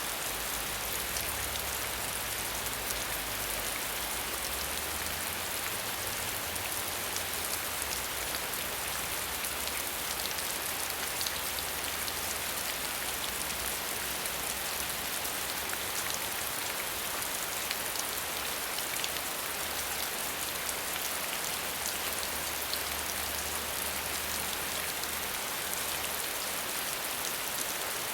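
Steady heavy rain: an even hiss dotted with countless small drop ticks, unchanging throughout.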